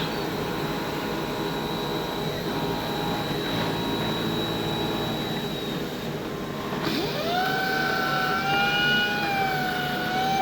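Automatic fabric-cutting machine running with a steady mechanical hum; about seven seconds in, a motor whine rises in pitch and then holds steady.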